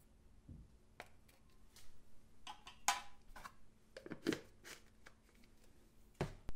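Scattered light clicks, taps and rustles as a plastic ingredient container is handled and tipped over a glass mixing bowl, with a sharper knock near the end as it is set down.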